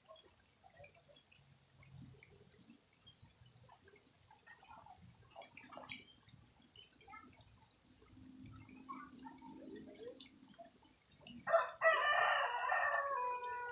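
A rooster crowing once near the end, a loud call of about two seconds whose pitch falls at its tail; faint scattered chirps and small sounds before it.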